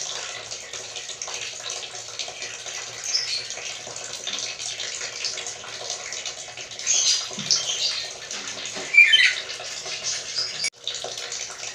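Black-capped lory giving a few short squeaky calls, the loudest a falling squeak about nine seconds in, over a steady rushing hiss like running water.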